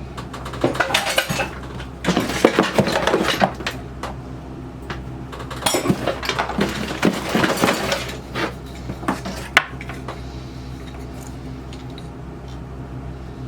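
Loose metal sewing machine parts clinking and rattling together as they are rummaged through and handled, in two busy bursts followed by a few single clicks.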